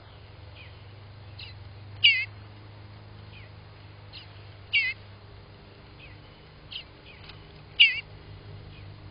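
Eastern bluebird nestling on the point of fledging, calling from the nest box: three loud, short, wavering calls about three seconds apart. Fainter bird calls come in between.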